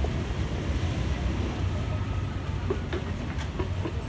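Busy street ambience: a steady low rumble of traffic, with brief scraps of voices near the end.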